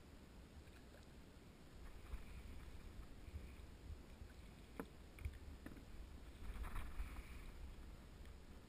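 Faint splashing and sloshing of water as a hooked large rainbow trout thrashes at the surface, with a louder flurry of splashes about six and a half seconds in.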